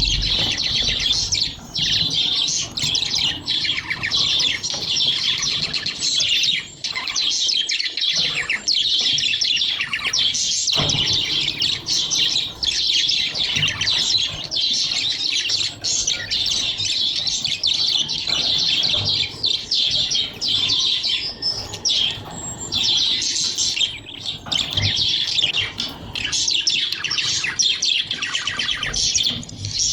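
A group of budgerigars chirping and chattering, many voices overlapping without a break.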